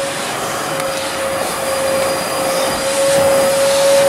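Vacuum cleaner running while cleaning out a car: a steady high motor whine over a rush of air, getting a little louder near the end.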